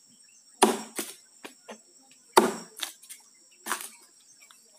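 Three axe blows chopping into the stump of a dead agarwood tree, about a second and a half apart, each followed by lighter clicks of chips and splitting wood. A steady high insect drone runs behind.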